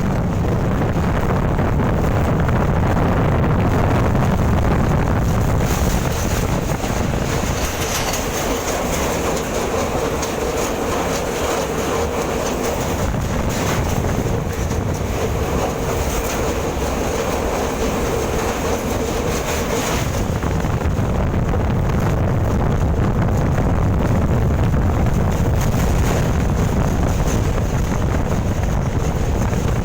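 Steady rumble and rattle of a moving train, with wind on the microphone. A faint steady tone joins in from about eight to twenty seconds in.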